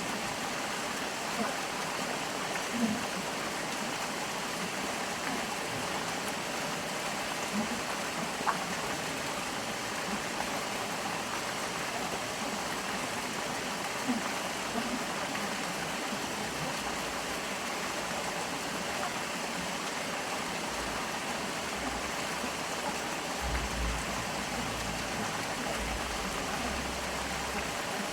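Stream running steadily, a constant rush of flowing water with occasional small gurgles and splashes.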